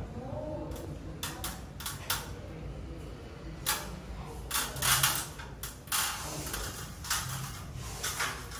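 Irregular knocks, clicks and clatter of tools and parts being handled during installation work, the loudest a few seconds in, over a low steady hum.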